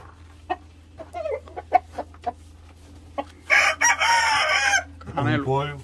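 A gamecock rooster crows once, loud and lasting a little over a second, about three and a half seconds in, after a few short, scattered sounds.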